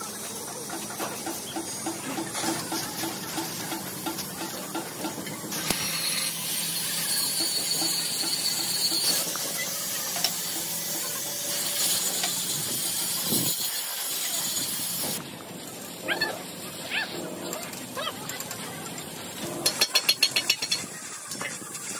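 A steady, loud hiss of air or spray lasting several seconds in the middle, with a rapid run of sharp clicks near the end.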